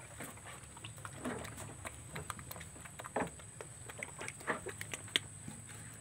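Goats moving about in a wooden slatted shed: irregular knocks and rustles, with a thin steady high whine underneath.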